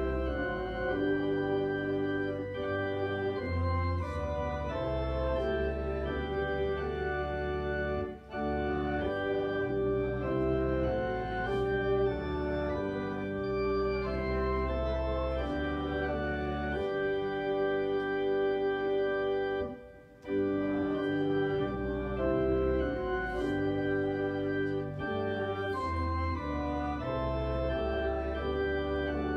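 Church organ playing a hymn in slow, held chords over a deep bass line, with short breaks between phrases about 8 and 20 seconds in.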